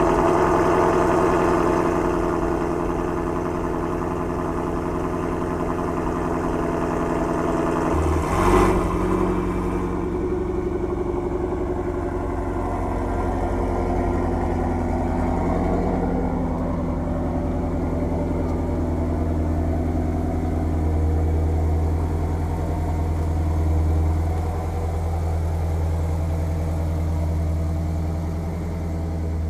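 Ford Shelby GT350's 5.2-litre flat-plane-crank V8 running at a cold-start fast idle, with one short louder burst about eight seconds in, then idling on as the car creeps forward at low speed.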